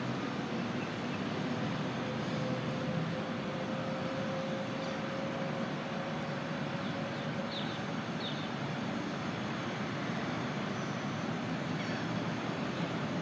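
Steady distant engine rumble with a faint drawn-out hum that slowly rises in pitch, and a few brief high chirps about two-thirds of the way through.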